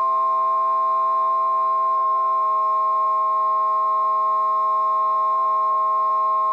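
Harmonica vocoder sound effect: a steady electronic chord of several held tones, with the lower notes changing about two and a half seconds in.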